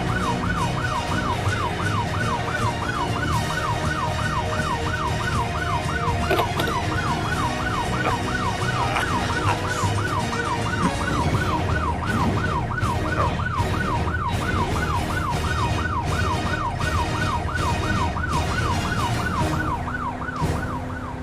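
Police-style yelp siren, a rapidly repeating rising wail about two and a half times a second, over a steady low rumble; it stops just before the end.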